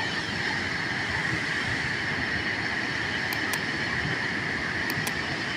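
Waterfall's rushing water, a steady, even roar. Two pairs of faint high ticks about halfway through and near the end.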